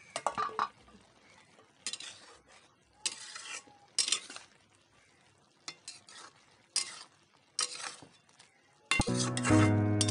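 A metal spatula scrapes and stirs okra in an aluminium kadai, in about eight separate strokes. Background music comes in near the end and is louder than the stirring.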